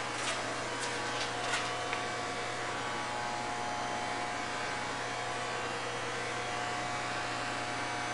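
Steady mechanical hum and hiss of background machinery, with a few faint clicks in the first couple of seconds.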